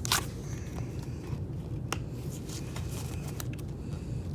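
Trading cards being handled and sorted into piles: a few short clicks and slaps, the sharpest just at the start and another about two seconds in, over a steady low hum.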